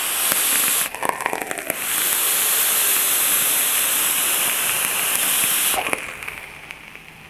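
Vape coil in a rebuildable dripping atomizer crackling loudly as an Avid Lyfe mechanical mod fires it during a long draw. The crackle breaks off briefly about a second in, then runs on for about four seconds and fades away near the end.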